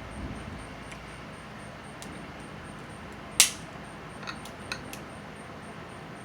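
Snow crab shell being cracked by hand: one sharp crack about three and a half seconds in, with a few lighter clicks before and after.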